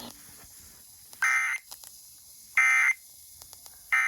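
Emergency Alert System end-of-message data signal: three short identical bursts of warbling digital tones, about a second apart, marking the end of the alert.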